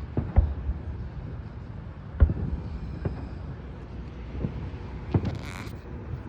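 Aerial firework shells bursting in the distance: about five bangs in six seconds, the two loudest in the first couple of seconds, with a brief high hiss near the end.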